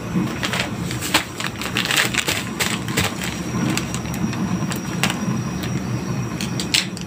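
Gas stove burner running under a wide aluminium pot of water: a steady low rumble with irregular sharp crackles and ticks from the heating, wet-sided pot.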